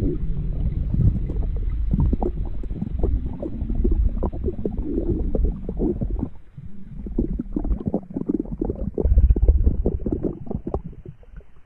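Stomach growling sound effect: a long run of wet gurgles over a low rumble, dropping away briefly about six and a half seconds in before gurgling again.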